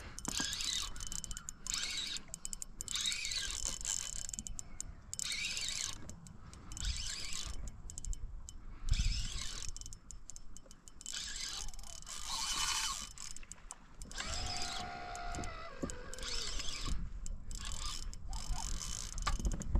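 Fishing reel clicking and ratcheting in repeated bursts of a second or two while a hooked fish is played on a bent rod.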